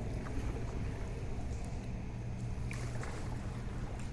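River water lapping and gurgling around a moving canoe, with a few faint splashes, over a steady low rumble of wind on the microphone.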